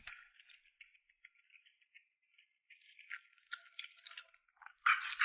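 Close-miked chewing of spicy seafood skewers: soft, scattered crackling clicks that grow busier, with a louder crunch near the end.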